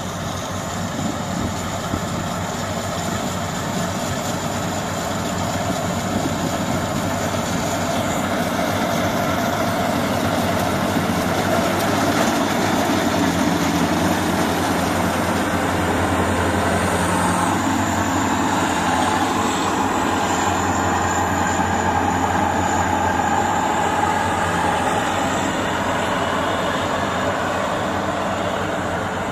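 World Star mini combine harvester running as it cuts and threshes rice: a steady mechanical drone that grows louder as the machine comes close about halfway through, then eases as it moves away.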